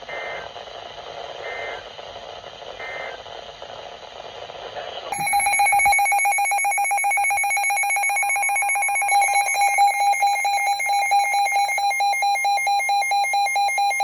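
NOAA Weather Radio EAS SAME header: three short buzzing data bursts over radio hiss. About five seconds in, weather alert radio receivers set off their loud pulsing electronic alert alarms, with further alarm tones joining a few seconds later, triggered by the incoming alert.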